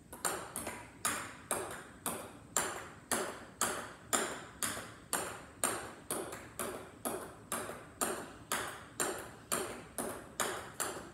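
Mini ping pong ball in a long rally: a steady run of sharp clicks, about two or three a second, from paddle hits alternating with bounces.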